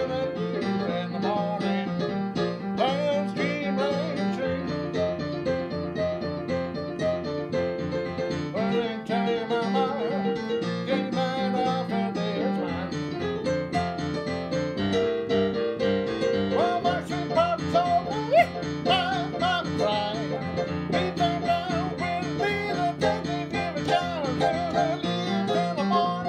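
Piano played on an electric keyboard: an upbeat tune with a steadily repeating left-hand bass figure under right-hand melody.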